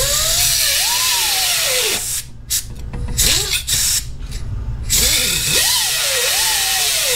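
Pneumatic cutoff tool cutting through the steel shell of a motorcycle exhaust head pipe, its cutoff disc worn down to a tiny stub. The air motor's whine rises and dips as the disc bites. It runs steadily at first, drops to short stop-start bursts about two seconds in, then runs steadily again from about five seconds in.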